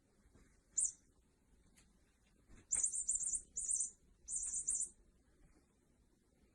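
Small bird twittering: a single high chirp about a second in, then three bursts of fast, very high-pitched trills between about two and a half and five seconds.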